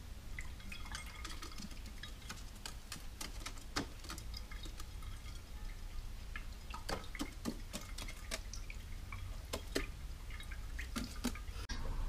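Water dripping and splashing in a ceramic bowl as fingers dabble in it: an irregular string of small plops and drips, cutting off abruptly near the end.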